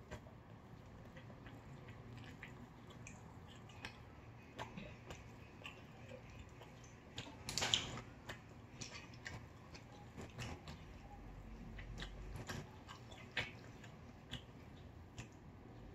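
Quiet eating: faint chewing and mouth sounds with scattered small clicks, the loudest a short cluster of clicks about eight seconds in.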